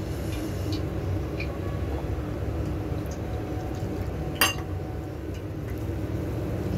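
Wire whisk stirring dry gram flour in a glass bowl, its wires clinking lightly against the glass, with water poured into the flour about four seconds in and one sharp clink of the whisk on the bowl just after. A steady low hum runs underneath.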